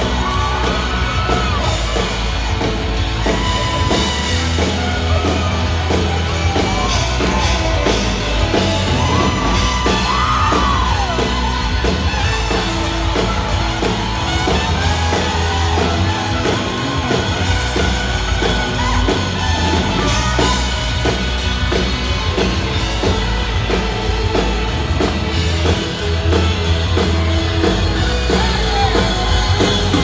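A live country-rock band plays loudly, with saxophone and trumpet over electric and acoustic guitars and a drum kit. Yells and whoops rise from the crowd.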